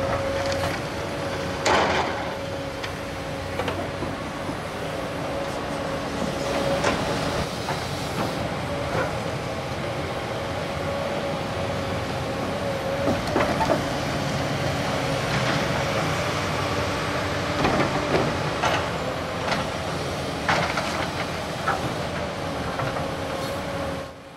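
Komatsu PC240LC-10 hydraulic excavator running as it digs soil: a steady engine hum with a constant high whine from the machine, and now and then a sharp clank or scrape as the bucket works the dirt and stones.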